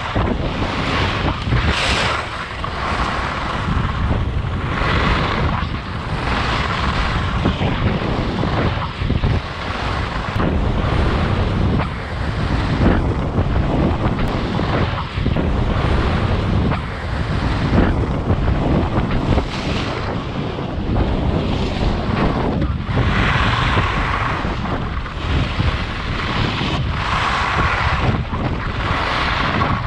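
Wind buffeting the microphone of a camera moving down a ski slope. Over it comes a hissing scrape of edges on hard-packed snow, swelling and fading every few seconds with the turns.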